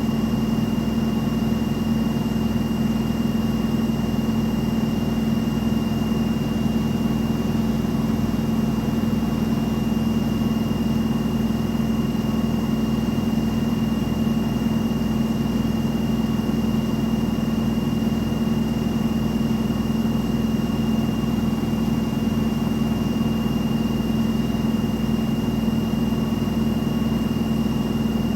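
Washing machine in its spin cycle, the drum turning at a constant high speed: a steady hum with a thin, high, unchanging whine above it.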